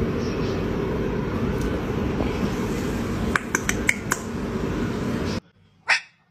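A steady low noise with about five sharp clicks between three and four seconds in, which stops abruptly. Then a domestic cat gives one short, loud meow near the end.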